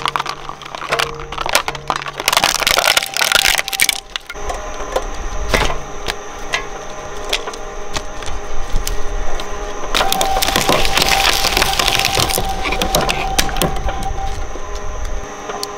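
Twin-shaft shredder cracking and crunching up a plastic toy frisbee and then a child's umbrella. Sharp snaps and bursts of crackling, densest in the first four seconds and again from about ten seconds in, sound over the machine's steady running hum.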